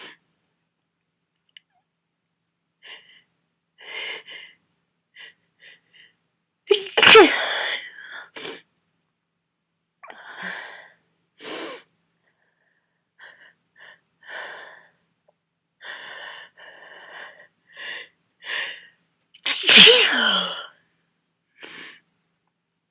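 A person with a heavy head cold sneezing hard twice, about 7 seconds in and again near the end, with short breathy intakes and sniffs building up between the sneezes.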